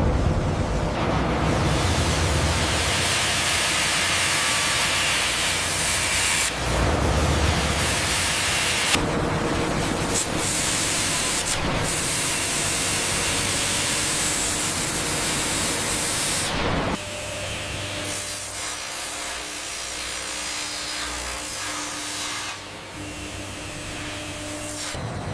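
Wood-processing factory machinery giving a steady, hissing rush of noise that changes abruptly several times and drops to a quieter hum about two-thirds of the way through.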